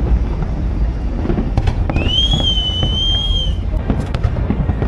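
Fireworks display: aerial shells booming and crackling in a continuous low rumble with many sharp bangs. About two seconds in, a high, fairly steady whistle is held for about a second and a half.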